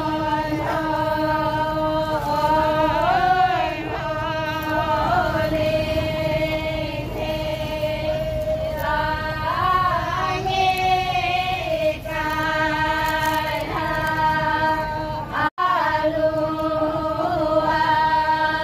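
Women's voices singing the Toraja pa'katia chant in long, drawn-out notes that bend slowly from one pitch to the next. The sound cuts out for an instant about 15 seconds in.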